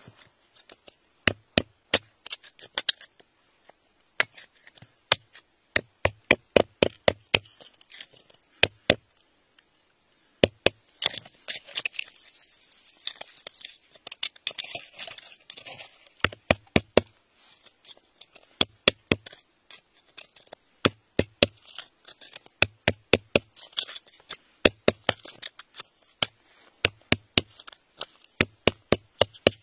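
Metal pick tapping at stony dirt and crystal: sharp clicks in quick runs of two to four, each with a short low thud. A scratchy, hissing scrape runs through the middle.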